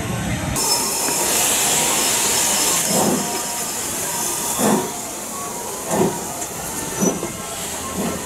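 Steam engine starting to move off: a sudden burst of hissing steam, then slow exhaust beats that gradually quicken.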